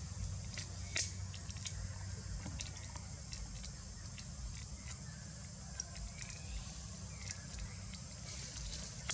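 Outdoor ambience: a steady low rumble with scattered small clicks and crackles, and a few faint short chirps about six and seven seconds in.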